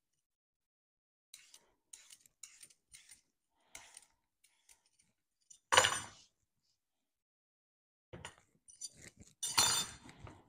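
Cucumber being peeled by hand over a wooden chopping board: faint short scraping strokes, a clattering knock on the board about six seconds in, and more clicks with a second clatter near the end.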